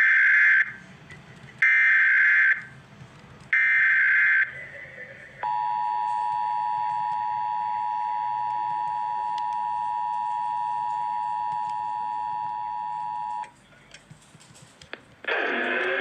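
Emergency Alert System alarm: three short buzzy data bursts about a second apart (the SAME header), then the steady two-tone attention signal for about eight seconds, which cuts off abruptly. Near the end a rising siren-like wail begins.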